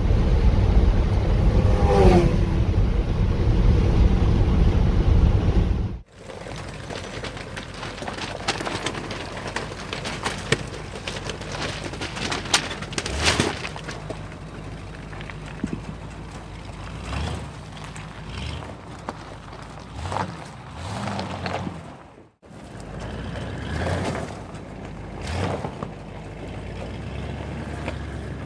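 A 1977 Jeep J10 pickup driving, heard from inside the cab for about six seconds: loud, steady engine and road rumble. Then, after a sudden break, quieter outdoor sound with scattered crunches and knocks, and in the last few seconds the truck rolling over loose gravel, stones crunching under the tyres.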